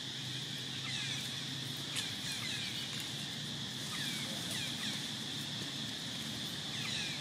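Steady high-pitched insect drone, with short falling chirps scattered through it.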